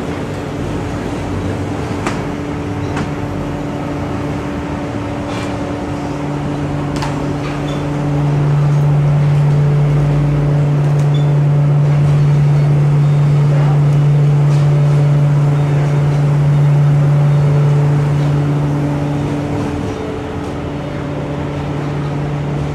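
Steady machinery hum from a plate-type veneer dryer line, a low droning tone that swells louder for about ten seconds in the middle and then eases back. A few light knocks come in the first several seconds.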